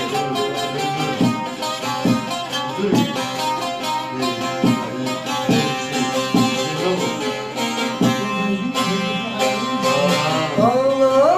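Instrumental passage of a Turkish folk song: plucked string playing over held notes, and a note sliding upward near the end.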